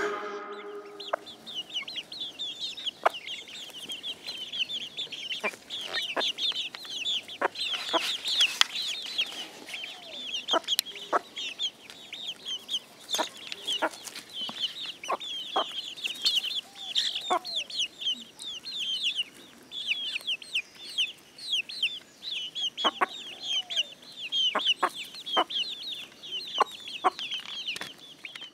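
Chickens foraging close to the microphone: clucks, and sharp pecking clicks as they strike at the ground. Underneath is an unbroken run of high, rapid chirping.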